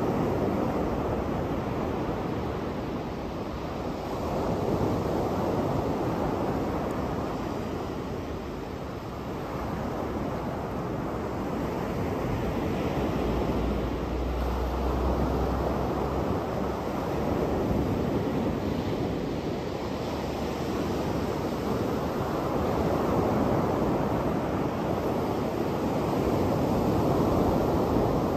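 Surf breaking on a sandy beach: a steady wash of waves that swells and eases every few seconds. A brief low rumble comes about halfway through.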